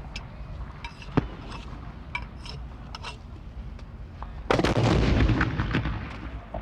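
Gunfire at a firing range: a few sharp cracks, the loudest about a second in. About four and a half seconds in comes a much louder single shot whose boom rolls on and fades over a second or more.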